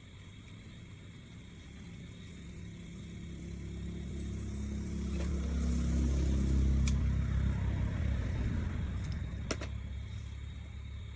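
A motor vehicle passing by, its engine growing louder, loudest about six or seven seconds in, then fading away. A couple of sharp taps sound over it near the middle and toward the end.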